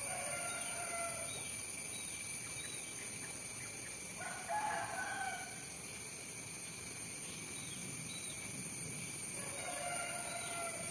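A rooster crowing three times, the middle crow the loudest, over a steady high insect drone.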